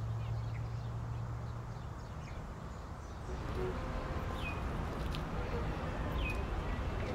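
Outdoor street ambience: a steady low hum that fades about two seconds in, under an even background hiss. Two short, falling bird chirps sound near the middle and near the end.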